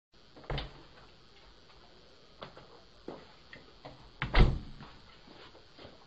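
Footsteps and thumps of a person arriving at a front porch, heard through a Ring doorbell camera's microphone: a sharp knock about half a second in, a few lighter steps, and a louder thump about four seconds in.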